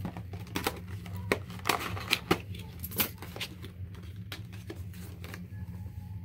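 A boxed card-game set and its packaging being handled and opened by hand: a quick run of crinkles, taps and clicks, thickest in the first three seconds and thinning out after, over a steady low hum.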